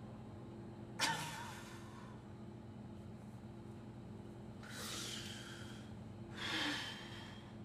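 A man's sharp, sudden gasp about a second in, then two more heavy breaths near the end, over a steady low hum. These are the breaths of a man fighting back tears, face buried in his hands.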